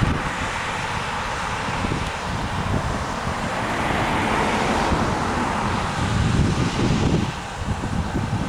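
New Holland CR8.90 combine harvester running steadily while harvesting wheat, with wind buffeting the microphone in uneven gusts.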